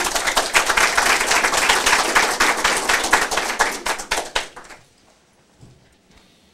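Audience applauding: a dense patter of handclaps that tails off and stops about four and a half seconds in.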